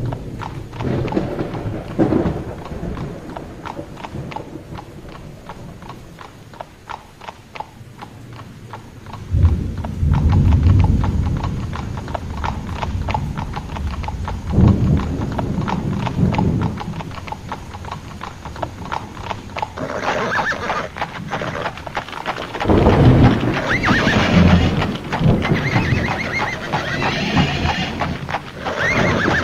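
Thunderstorm sound effects with heavy rolls of thunder, loudest about ten seconds in and again past twenty seconds, over a run of hoofbeats. In the last third horses whinny repeatedly.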